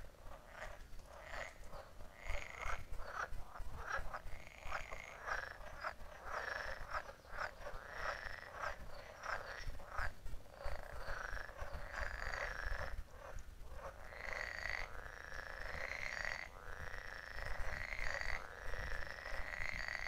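Chorus of frogs croaking, many overlapping calls repeating rapidly, merging into an almost unbroken chorus about halfway through.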